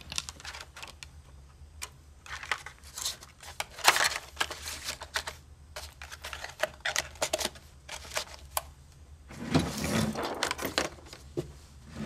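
Handling noises at a wooden desk: a scattered string of small clicks and taps, with a few longer rustles, as eyeglasses and a small cardboard box are picked up and set down.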